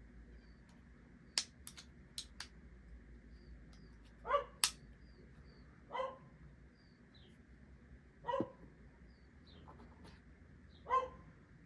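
A dog barks four times, about two seconds apart, off to one side. Earlier there are a few sharp clicks of hard plastic camera accessories being handled.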